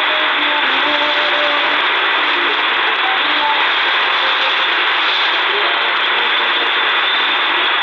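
C.Crane Skywave portable radio tuned to 5800 kHz shortwave, its speaker giving a steady hiss of static and noise. Faint music from the weak pirate broadcast shows through underneath.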